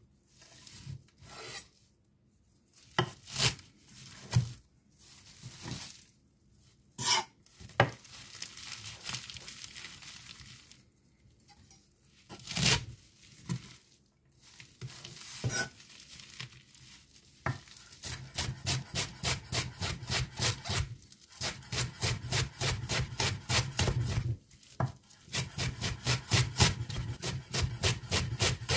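Zwilling chef's knife chopping greens on a board: scattered single cuts and some scraping at first, then about two-thirds of the way through a fast, even run of chops at about four a second, broken twice by short pauses.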